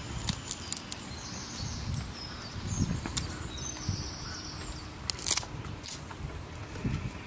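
Outdoor ambience: a steady low rumble with short, high bird chirps now and then. A few sharp clicks and rustles come from green bananas being peeled by hand.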